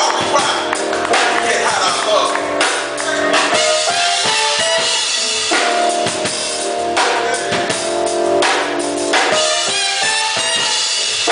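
A band playing music: a drum kit keeps up a beat over sustained pitched instrument notes.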